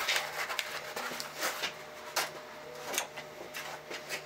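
Light clicks and rustling of a 3D-printed plastic chest plate and its straps being handled and pressed into place while worn, over a faint steady hum.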